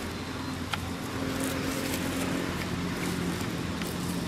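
A motor vehicle's engine humming steadily, its pitch dropping about halfway through.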